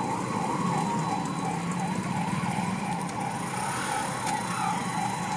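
Siren of a 108 emergency ambulance, its tone wavering quickly up and down, over the low hum of traffic.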